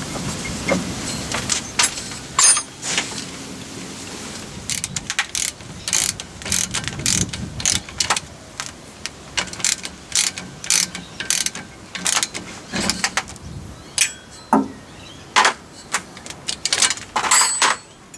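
Socket ratchet clicking in short runs as nuts are undone on the hub of a floating rear axle, with a few sharper metallic clinks.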